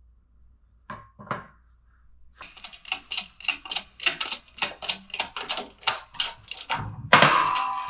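Hammer blows on steel, driving the rear wheel bearing out of an ATV's aluminium knuckle. Two single knocks, then a steady run of quick strikes, about three or four a second, turning into heavier, ringing blows near the end.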